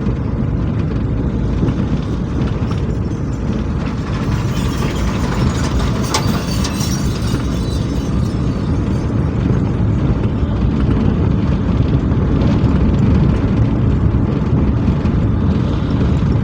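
Steady low rumble of a running motor vehicle or machine, with a brief rise in hiss about four to seven seconds in.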